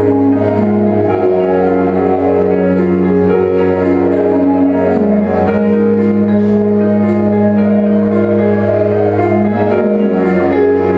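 Instrumental music accompanying a dance number, with long held chords and no break.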